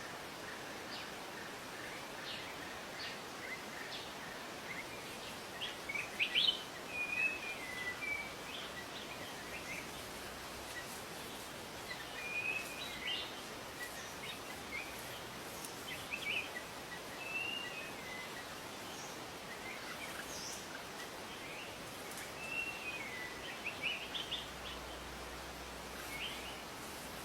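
Wild birds calling in short whistled phrases, some gliding up and down in pitch, in several separate bouts over a steady background hiss.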